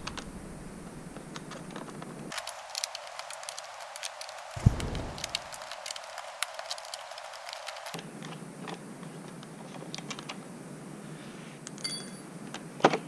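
Hand tools and small parts being handled: scattered light clicks and rattles, with one heavier knock about four and a half seconds in.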